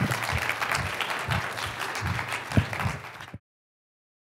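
Audience applauding, the dense clapping of many hands, cut off abruptly about three and a half seconds in.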